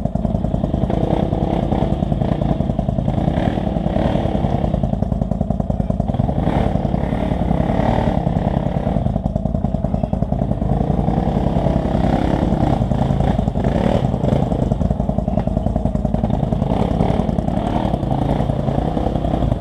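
ATV (four-wheeler) engine running continuously at a fairly steady pitch as a quad works through a mud hole.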